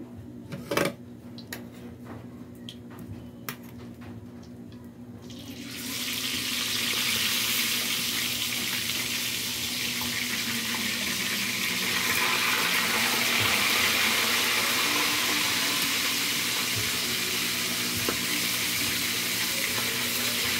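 Fish frying in hot oil in a wok: a loud, steady sizzle that starts suddenly about six seconds in, after a few light clicks and a knock.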